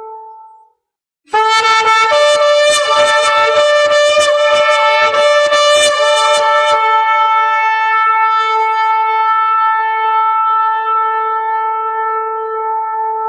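Shofar (ram's horn) blasts. After a brief silence a loud call enters about a second in, with a second, higher note over it and a quick run of short broken stutters. Near the halfway point it settles into one long held note.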